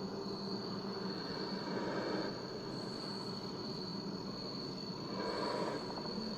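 Steady background hiss and hum under a constant high-pitched whine, swelling slightly twice.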